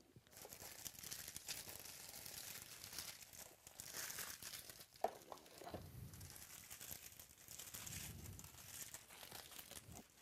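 Cardboard box and packaging being handled and crinkled as the table is cleared, a steady crackly rustle with one sharp click about five seconds in.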